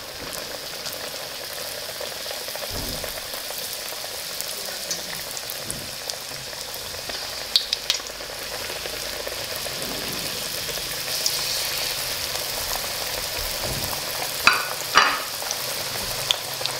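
Samosas deep-frying in a wok of hot oil: a steady sizzle and bubbling. Two short clusters of sharper pops and crackles come about halfway through and near the end.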